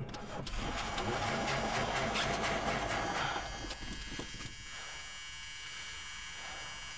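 Starter cranking a long-stored Mercury station wagon's V8 without it catching, stopping after about three and a half seconds. The owner doubts it has enough fuel to fire.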